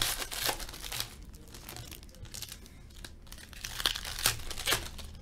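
Foil trading-card pack wrapper being torn open and crumpled in the hands: irregular crackling, busiest at the start and again around four seconds in.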